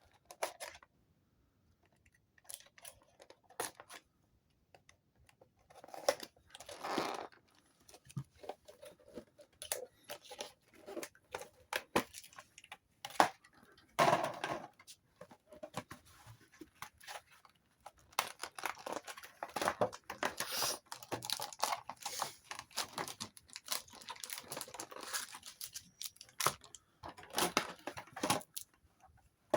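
Yu-Gi-Oh! trading card packaging, box wrapping and foil booster packs, being torn open and crinkled by hand, in irregular bursts of rustling with short quiet gaps; the tearing and crinkling is busiest in the second half.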